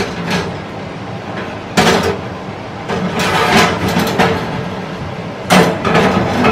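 Ceramic baking dish scraping and knocking against a metal oven rack as it is pushed into the oven, with two sharp knocks, one about two seconds in and one near the end, over a steady hum.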